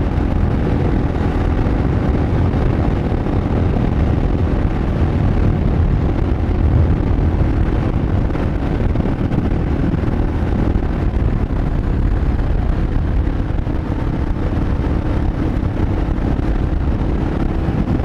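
Steady wind rumble on the microphone over the constant drone of a Yamaha XT 600E's single-cylinder engine cruising at highway speed.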